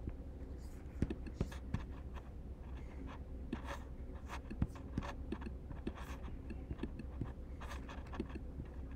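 Faint handling noise after the guitar has stopped: scattered small clicks and scratches, with a few sharper taps, over a steady low hum.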